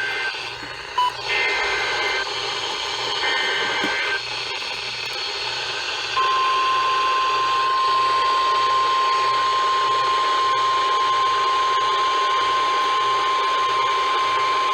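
NOAA Weather Radio EAS alert over a radio receiver with static hiss. Three short, harsh digital header bursts open a new warning, then from about six seconds in the steady single-pitch 1050 Hz warning alarm tone sounds.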